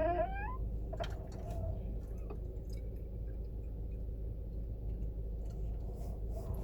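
Car steering wheel creaking as it is turned: a rising squeak ends about half a second in. Scattered faint clicks and a short creak follow over a steady low hum.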